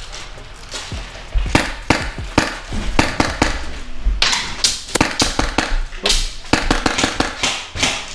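Airsoft guns firing a rapid, uneven run of sharp shots, starting about a second and a half in, over background music.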